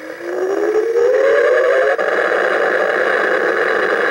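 Electronic sci-fi sound effect from a Star Trek Borg cube coin bank: a whine rising in pitch for about two seconds, then a steady hum.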